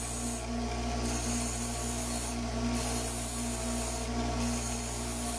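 Bench grinder running steadily while the point of a quarter-inch DeWalt pilot point drill bit is ground on the wheel in repeated passes, each a little over a second with brief pauses between them. The bit is being shaped like a standard drill point for steel.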